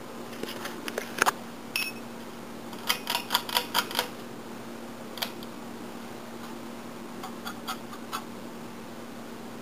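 A Casablanca Lady Delta ceiling fan motor running on low speed in reverse, with a steady low hum. Irregular sharp clicks sound over it: a few in the first two seconds, a quick run of about five a little after three seconds, and a few more later.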